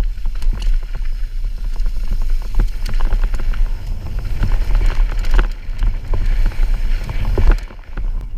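Mountain bike descending a trail at speed: steady wind buffeting on the microphone with scattered clicks and knocks from the bike rattling over the ground.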